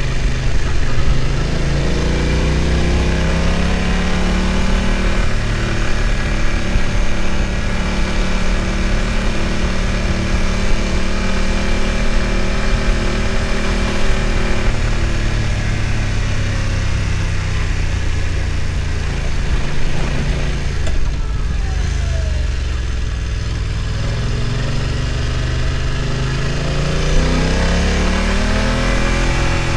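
BMW F900 XR's parallel-twin engine pulling uphill. The revs rise over the first few seconds, hold steady, drop off around the middle, then climb again near the end.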